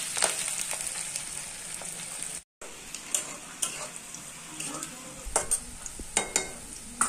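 Sliced onions sizzling in hot oil in a metal kadai as they are fried to brown, with a metal spatula scraping and clicking against the pan several times. The sound cuts out completely for a moment about a third of the way in.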